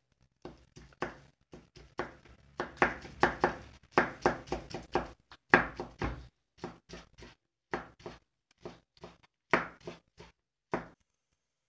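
Kitchen knife slicing rolled egg pancakes into thin strips, each cut ending in a tap of the blade on a plastic cutting board, about two or three strokes a second. The cutting stops near the end.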